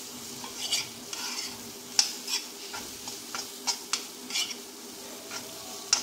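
Metal spoon stirring boiled white chickpeas in spice masala in a black iron kadai, with irregular scrapes and knocks against the pan over a steady low sizzle on low flame.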